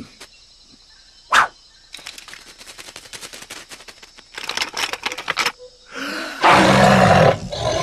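Cartoon sound effects: a brief sharp sound about a second and a half in, then runs of rapid clicking. A loud roar-like animal call comes near the end.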